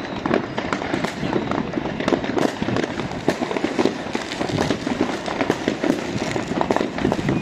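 Many fireworks going off at once: a dense, unbroken barrage of bangs and crackles from rockets bursting overhead, the bangs overlapping with hardly a gap.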